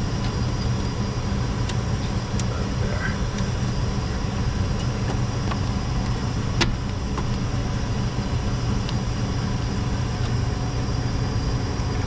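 Steady low machinery drone with a few faint clicks from wires and a cabinet shelf being handled, the sharpest click a little past halfway.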